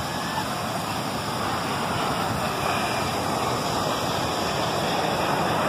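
Steady rushing roar of jet aircraft, slowly growing louder, mixed with the wash of breaking surf.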